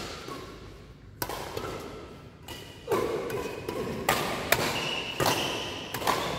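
Badminton rackets striking a shuttlecock in a doubles rally: sharp hits about once a second, each ringing in a large hall.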